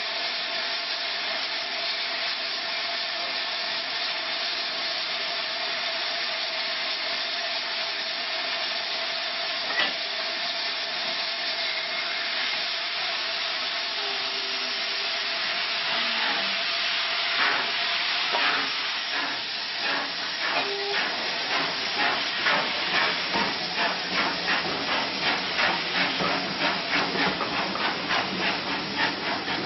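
Steam locomotive hissing steam steadily with a constant tone while standing. About halfway through it starts away, and exhaust chuffs begin slowly and quicken to about two a second.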